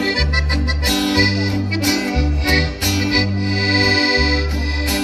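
Live band playing an instrumental break between sung verses: an accordion melody over a bass line that changes note about every half second to second, with drums and cymbals keeping time.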